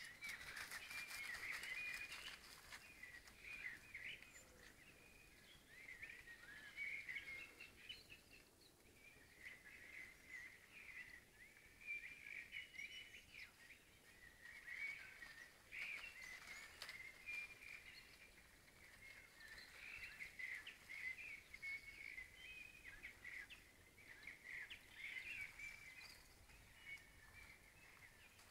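Faint birdsong: many short, high chirps and trills that come and go throughout.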